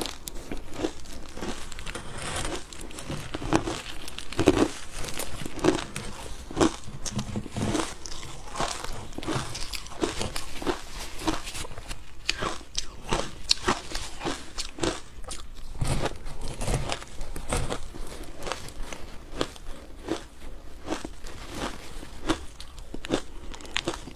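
Ice being bitten and chewed: a steady run of sharp crunches and cracks, several a second.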